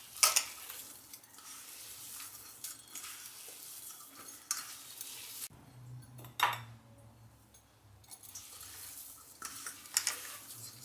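A spoon clinking and scraping against a mixing bowl as corn flour is added spoonful by spoonful to a mashed-potato kabab mixture, with a few sharp clinks between softer scraping.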